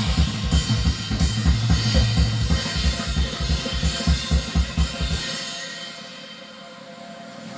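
Music with a fast drum-kit beat, bass drum and cymbals. The bass drum and low end drop out about five seconds in, leaving quieter, thinner music.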